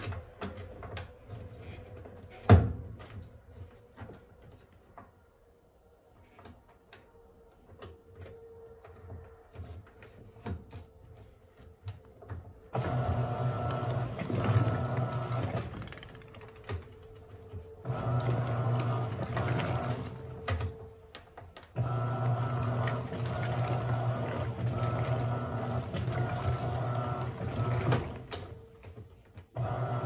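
Electrolux LAC17 top-loading washing machine agitating a load of jeans with its impeller: the drive motor hums steadily in stretches of a few seconds, starting a little under halfway through and pausing twice. A single sharp click comes about two and a half seconds in.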